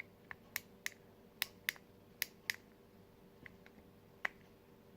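Plastic fidget cube being clicked by hand: about nine sharp, separate clicks at an uneven pace, the loudest and closest together in the first half.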